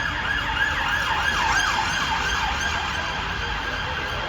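Emergency vehicle siren in a fast yelp, its pitch rising and falling about three times a second. It is loudest about a second and a half in, then fades, over steady background noise.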